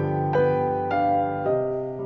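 Solo piano playing a slow, gentle melody: three notes struck about half a second apart over held lower notes.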